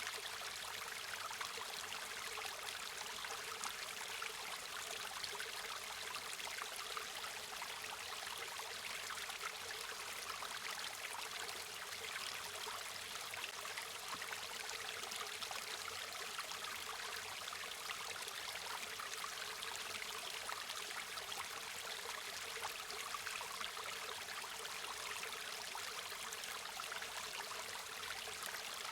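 A river or stream flowing steadily over rocks: a continuous rushing and babbling of water, even throughout, with its energy in the middle and high range.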